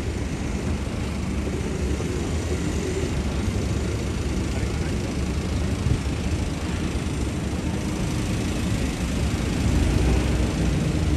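Busy city street ambience: a steady low rumble of traffic under an even wash of street noise, growing a little louder near the end.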